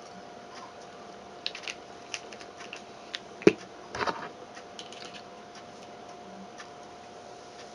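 Light clicks and taps of hands handling vape gear, a small e-liquid dropper bottle and a dripping atomizer, with one sharper knock about three and a half seconds in and a short cluster of taps just after. A faint steady hum sits underneath.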